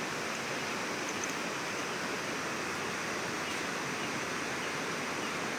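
Steady rushing of river water flowing beneath a bridge, an even hiss with no change.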